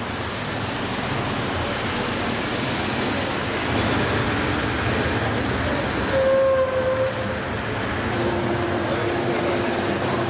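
Steady rumble of a metro train running, with a brief whine about six seconds in and a steady hum over the last couple of seconds.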